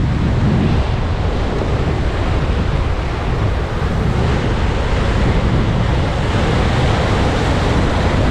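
Sea waves breaking and washing against rocks, with wind buffeting the microphone as a steady low rumble.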